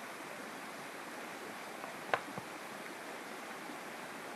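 Shallow rocky stream flowing steadily over stones. About two seconds in there is a single sharp knock, followed moments later by a softer one.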